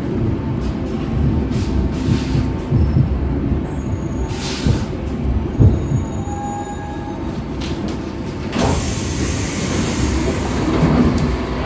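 Stockholm metro C14 carriage running, heard from inside: a steady low rumble of wheels and running gear, with a few faint high thin tones. A short rush of hiss comes about four and a half seconds in, and a broader hiss rises from about two-thirds of the way through.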